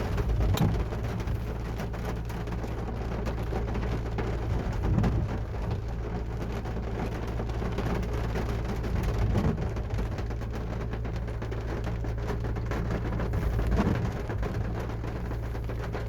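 Heavy rain falling on a car's roof and windscreen, heard from inside the cabin: a steady dense patter of drops, with a low, louder swell every four to five seconds.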